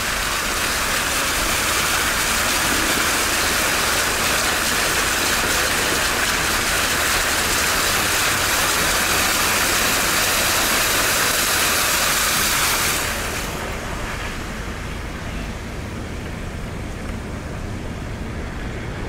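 A vehicle moving through floodwater: a steady, loud rush of water and road noise over a low engine rumble. The rush drops away sharply about thirteen seconds in, leaving a quieter rumble.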